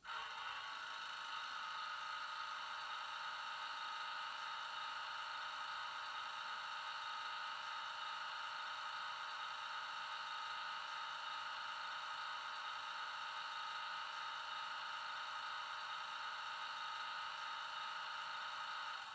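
Class 35 Hymek diesel locomotive engine idling, played by a model's DCC sound decoder through a small 26x14x7 bass-enhanced speaker: a steady, even drone that keeps the same pitch and has no deep bass.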